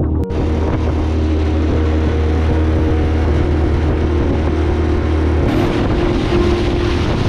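An engine running steadily at a constant pitch under a rushing hiss; it starts abruptly a moment in.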